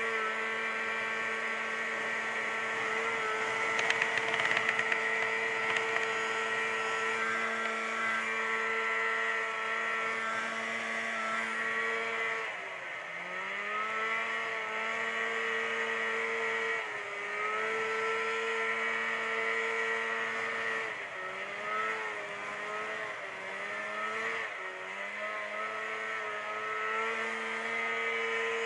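Snowmobile engine running at a steady cruising pitch, heard from the rider's seat, with a short clatter about four seconds in. In the second half the throttle eases off and picks back up several times, the engine note dipping and rising.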